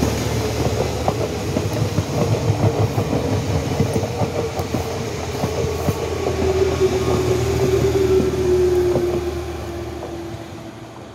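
SNCF Z2N double-deck electric multiple unit passing close by: wheels clattering over the rail joints with a steady whine that slowly falls in pitch. The sound fades in the last couple of seconds as the train pulls away.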